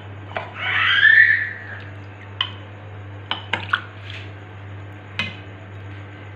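Metal utensils scraping and clinking against a cooking pot: one loud scrape about a second in, then a few sharp clinks.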